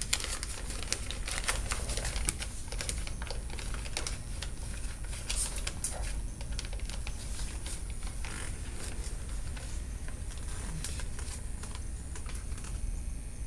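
Irregular light clicking and tapping, many small clicks a second, thinning out near the end.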